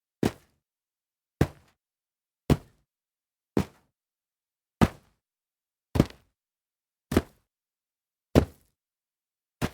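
Feet landing on dirt after a jump, nine times at about one-second intervals, each a short thud with dead silence between. Some landings are a quick double hit.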